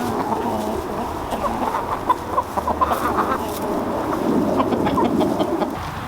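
A flock of chickens clucking, many short overlapping calls forming a steady murmur.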